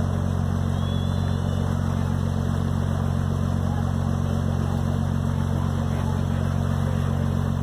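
Tall ship's engine running steadily under power, a low even drone.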